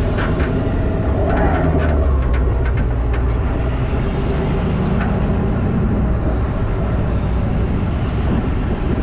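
Steady low rumble of a pickup truck driving slowly on sand, heard from on board the truck, with a few sharp clicks in the first few seconds.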